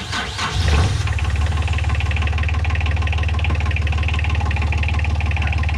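A sailboat's inboard engine finishing its cranking and catching under a second in, then idling steadily with a rapid, even clatter.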